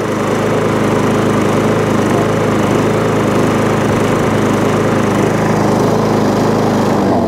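Tecumseh engine on an MTD push lawn mower running steadily at speed, then dropping to a lower idle near the end. It runs cleanly now that most of the thick foam packing that was starving it of air has been taken out of the air filter housing.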